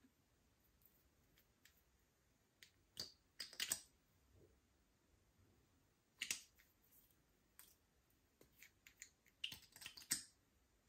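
Slime being pressed and worked by hand, giving scattered sticky clicks and small pops in short clusters: a few about three seconds in, a burst around six seconds, and a quick run just before the end.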